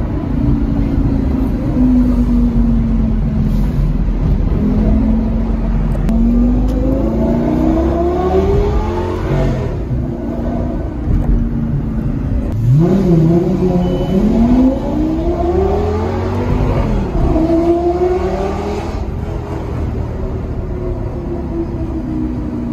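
Lamborghini engine heard from inside the cabin, accelerating through city streets: the revs climb, drop about ten seconds in, rise steeply again about two seconds later and keep climbing, then settle to a steady cruise near the end.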